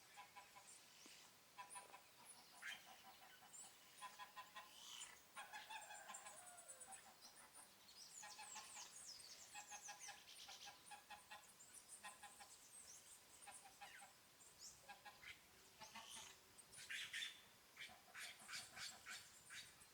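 A chorus of several kinds of birds chirping and calling together, many short repeated notes overlapping without pause.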